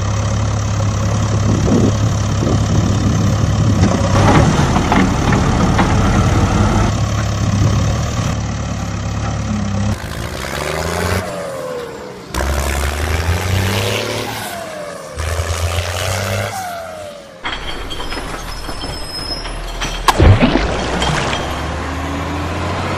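Heavy vehicle engine sound running steadily, then changing abruptly several times, with falling pitch sweeps in the middle. A loud sharp burst comes about twenty seconds in.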